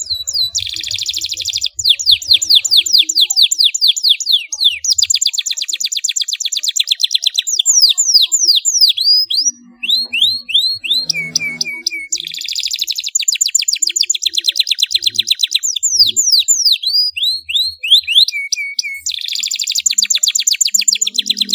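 Domestic canary singing a long, fast song of rolling trills: rapid runs of high, sharply falling notes, many to the second. The trills break briefly about ten seconds in and pause on a short, lower held note.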